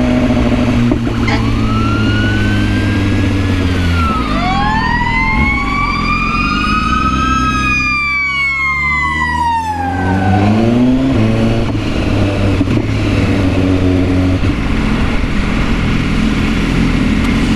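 An emergency vehicle's siren wailing, its pitch sweeping slowly up and down several times, over a motorcycle engine running in traffic.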